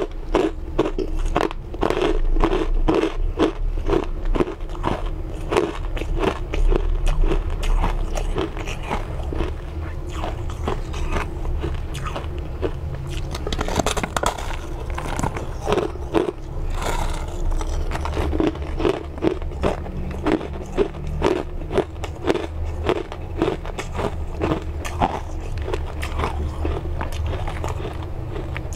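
A person biting and chewing through a block of frozen, crushed pink ice: a dense, continuous run of crisp crunches.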